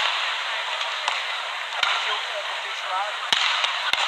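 Badminton rally: three sharp racket strikes on the shuttlecock, the second about a second and a half after the first and the third half a second later, over steady arena crowd noise.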